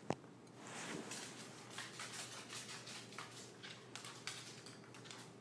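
Dogs' claws clicking on a hardwood floor as they move about: faint, irregular clicks.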